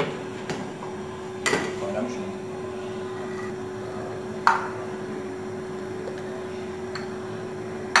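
A metal ladle clinking against a stainless steel pot and a porcelain soup bowl while soup is served. There are a few sharp clinks, the loudest about one and a half and four and a half seconds in, over a steady low hum.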